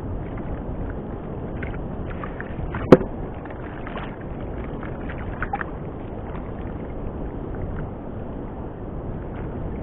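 Steady rush of wind and sea water around a small wooden fishing boat, with one sharp knock about three seconds in and a few faint clicks after it.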